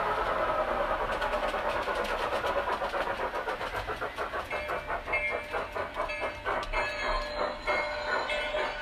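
Model steam locomotive chuffing on a large-scale layout, the chuffs spacing out and slowing as the train slows to a stop, with a steady tone sounding over the last few seconds.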